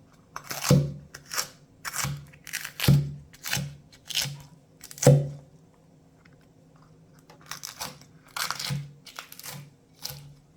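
Knife cutting through crisp food on a cutting board: a run of irregular crunching cuts, each with a dull knock, pausing for a couple of seconds midway before a second run.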